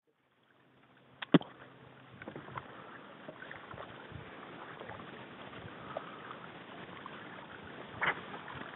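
Faint steady water and wind noise from out on the water, broken by a sharp double knock about a second in and a shorter knock near the end.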